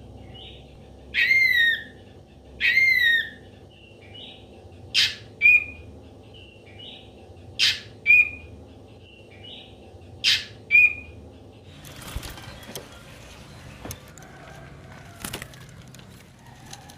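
Ashy drongo calling: two longer calls falling in pitch, then three sharp snapping notes each followed by a short clear whistle, with softer short notes in between. About two-thirds of the way in the calls stop and only faint scratchy noise is left.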